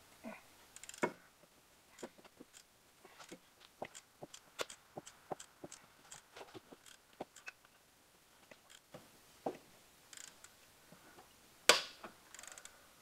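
Ratchet wrench clicking in short, irregular runs as an alternator mounting bolt is worked loose, with scattered metal taps and one sharp clank near the end.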